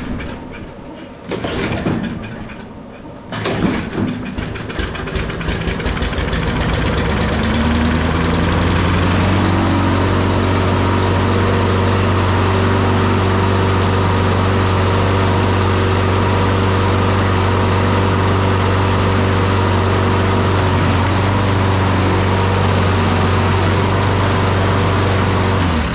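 Toro 22-inch Personal Pace Recycler's Briggs & Stratton single-cylinder engine being pull-started: a couple of short pulls, then it catches, rises in speed over a few seconds and runs steadily before cutting off suddenly near the end.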